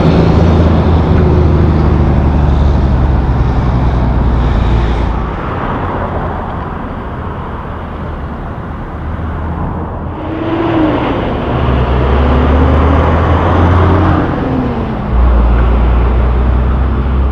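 Loaded log truck's diesel engine running as it drives past, with a strong low drone that fades after about five seconds. About ten seconds in, another vehicle goes by with a tone that rises and then falls, and a heavy engine drone returns near the end.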